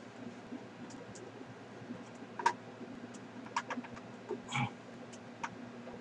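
Light, scattered clicks and taps of RAM sticks being handled in a Power Mac G5's memory bay, with a sharper click about two and a half seconds in and a short knock-and-scrape a little past four and a half seconds.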